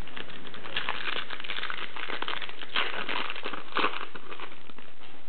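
Foil wrapper of a basketball trading-card pack crinkling in the hands as it is opened and the cards are pulled out, a continuous run of crinkles.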